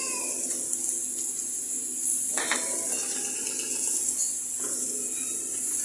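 Beef and chicken sizzling on a hot teppanyaki steel griddle in a steady hiss, with metal utensils clinking on the plate twice, about two and a half seconds in and again near the end.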